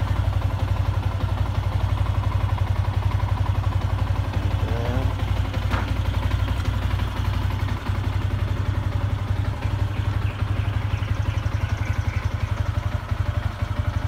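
Yamaha Sniper 150 motorcycle's single-cylinder four-stroke engine idling in neutral with a steady, even pulsing beat. The owner presents it as the bike's normal sound, though others claim it has a knock.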